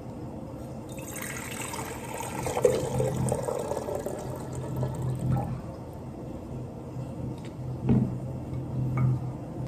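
Water running and filling a container, starting about a second in, followed by a low hum and a couple of sharp knocks near the end.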